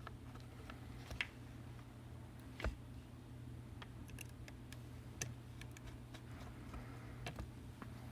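A few sparse small clicks and taps of small hand tools on the parts of an iPhone 7 being reassembled, over a low steady hum.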